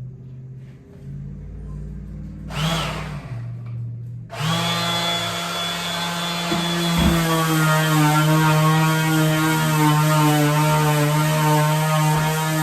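A small electric motor switches on about four seconds in and runs steadily with a strong hum, after a short burst of noise just before it.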